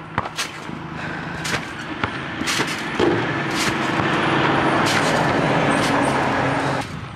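Trampoline mat and springs thudding and creaking under someone bouncing, roughly once a second. A loud, steady rushing noise with a low hum starts abruptly about three seconds in and cuts off shortly before the end, drowning the bounces.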